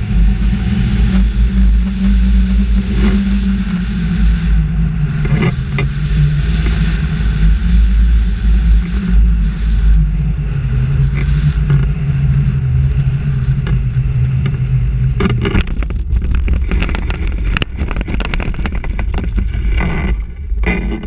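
Wind rushing hard over the microphone of a wing-mounted camera on a tandem hang glider in flight, with a low drone that slowly falls in pitch. About fifteen seconds in the glider touches down, and its base-bar wheels bump and scrape across the grass in a run of sharp knocks before it comes to a stop.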